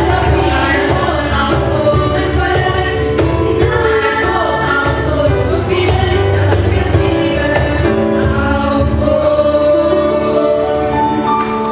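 Women's choir singing with instrumental accompaniment, ending on long held notes.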